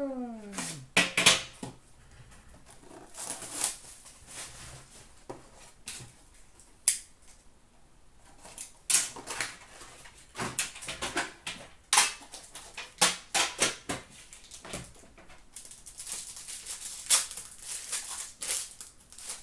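Foil trading-card pack wrappers and cards being handled and torn open: irregular crinkles, rustles and sharp clicks, with busier stretches in the second half.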